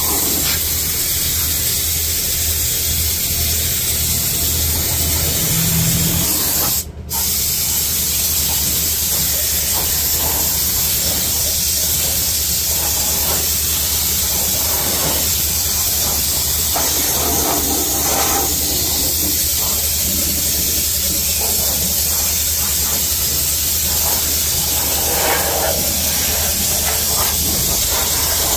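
Compressed-air spray gun hissing steadily as it sprays rubberised anti-rust underbody coating, with a brief break about seven seconds in. A low steady hum runs underneath.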